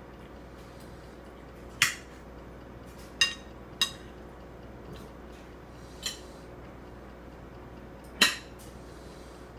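Plastic spoon clinking against a ceramic bowl as a toddler scoops food: about five short, sharp clinks with a brief ringing, spaced irregularly over several seconds.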